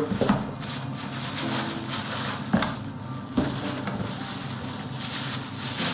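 Plastic packaging crinkling and rustling as bagged accessories are handled and pulled out of a cardboard box, with a few knocks.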